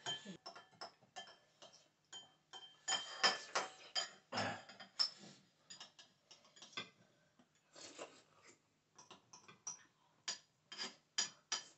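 Metal spoon clinking and scraping against a ceramic bowl and plate in irregular light taps, busiest a few seconds in and again near the end.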